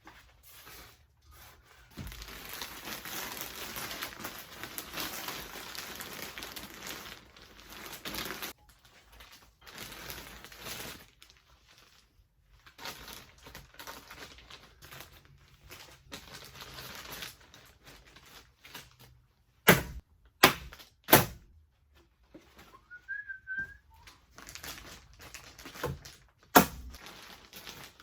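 Fiberglass insulation batts rustling and crinkling as they are handled and pushed into place. Three sharp clacks come in quick succession about two-thirds of the way through, and another near the end.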